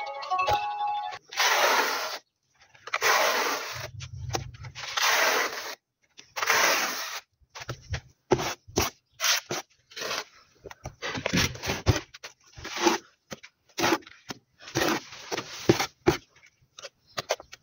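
Notched trowel dragged through wet tile adhesive on a wall in long scraping strokes, one about every second or two. About halfway in, these give way to short, sharp scrapes and knocks as the trowel is scraped clean and adhesive is scooped from a bucket.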